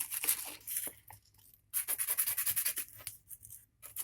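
Very fine sandpaper scratching the face of a miniature coin-cell battery in quick back-and-forth strokes, a dry hissing rasp that pauses briefly about a second in and again near the end. The surface is being roughened so the solder will bond better.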